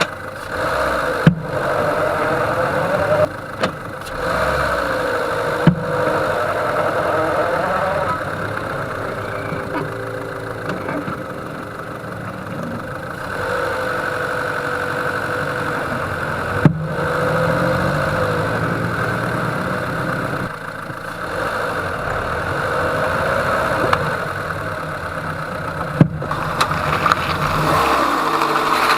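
Peugeot 207 engine running as the car moves off and slows, its note rising and falling. Four sharp single knocks come from the wheel and suspension several seconds apart. The owner puts them down to a hub bearing but suspects the CV joint, strut mount or shock absorber could be the cause.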